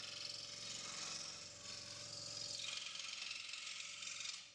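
Proxxon DS 460 scroll saw running and cutting a workpiece: a steady, fast rasp of the blade over a constant motor hum. It cuts off suddenly near the end.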